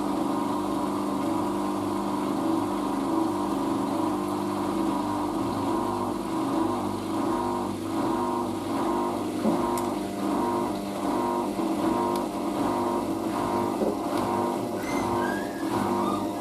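Hoover DYN9144D3X front-loading washing machine in its final spin with a load of towels: a steady motor and drum hum, with a faint rhythmic pulsing from about halfway.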